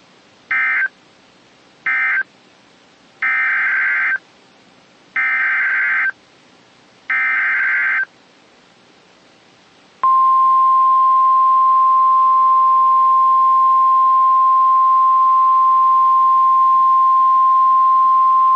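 Emergency Alert System SAME data tones: the last two short end-of-message bursts of the previous alert, then three longer buzzing bursts of the next alert's header. After a pause of about two seconds, a loud, steady single-pitched NOAA Weather Radio 1050 Hz warning alarm tone starts about ten seconds in.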